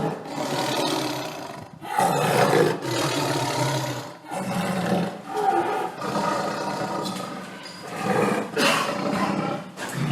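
Tiger roaring: a string of long roars, each about two seconds, with brief breaks between them.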